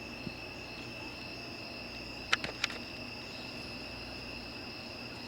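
A steady, unbroken chorus of crickets, a continuous high-pitched trill. Two faint clicks come a little over two seconds in.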